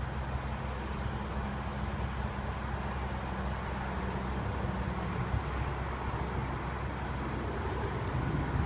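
Sterling rear-loader garbage truck's diesel engine running steadily, a low drone.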